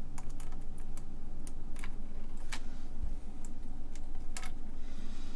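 Irregular small clicks and taps of DIP logic chips being handled and pressed into IC sockets on a circuit board, about ten in all, over a low steady background hum.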